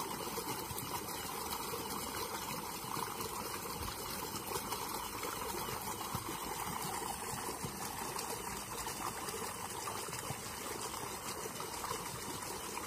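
Flowing river water, a steady even sound with no distinct events.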